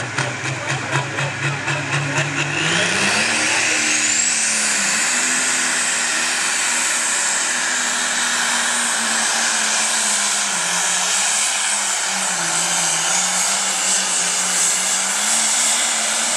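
A pro stock pulling tractor's turbocharged diesel engine revving in pulses of about four a second. About two and a half seconds in it goes to full throttle with a rising turbo whistle, then holds high revs under load through the pull, sagging slightly partway down the track.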